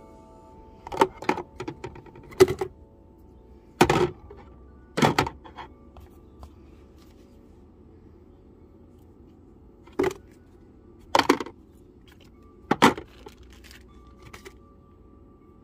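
Plastic toiletry containers and bottles clacking and knocking as they are set down and shuffled in a car's plastic glove box: a cluster of separate knocks, a pause of about four seconds, then a few more.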